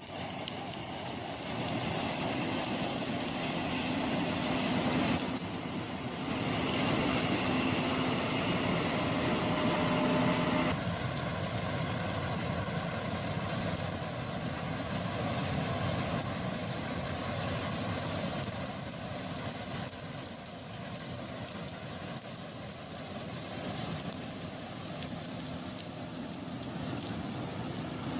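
Harvesting machine with a crop header (cutting table) at work: steady engine and machinery noise. The sound changes abruptly about eleven seconds in.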